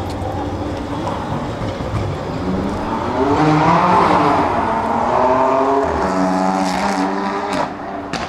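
Electric tram's traction motor whine as it pulls away, several tones gliding up and down together, loudest about four seconds in, then settling into steady tones. A few sharp clicks near the end.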